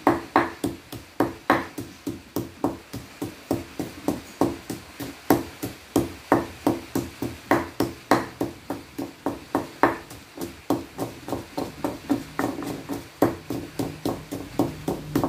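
Pestle pounding chillies and salt in a mortar, grinding them to a paste for chilli salt: a steady run of knocks, about three a second.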